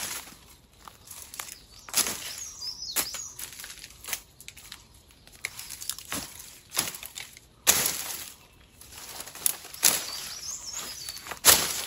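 Machete chopping and slashing through brush: irregular sharp hacks into branches with swishing and rustling of ferns and leaves, the loudest blows about two-thirds of the way through and near the end.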